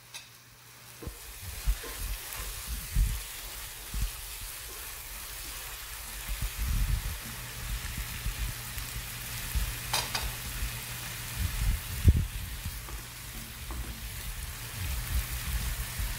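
Fried onion and spice masala sizzling in a nonstick pan, loosened with a little water, while a spatula stirs and scrapes against the pan in frequent low knocks. A short sharp click about ten seconds in.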